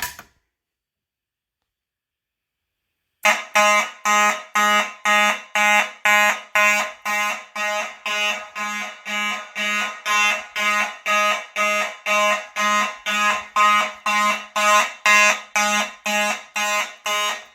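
Simplex 4903-9217 fire alarm horn strobe sounding in march-time code, about two horn blasts a second, starting about three seconds in. The system is in alarm from a pulled manual pull station.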